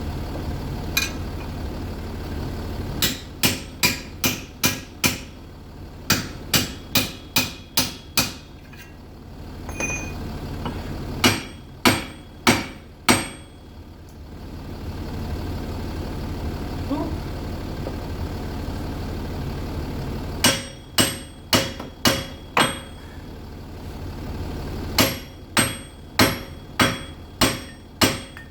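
Hammer blows on metal driving out a seized front wheel hub. The sharp strikes come in bursts of four to seven, about two or three a second, with pauses between bursts, over a steady low hum.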